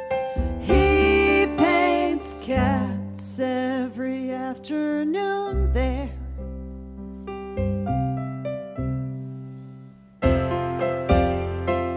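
Casio and Yamaha digital keyboards played as piano, with a woman singing held, wavering notes over them for the first half. The voice then drops out and the piano rings on alone, fading to a short gap about ten seconds in before loud chords come back in.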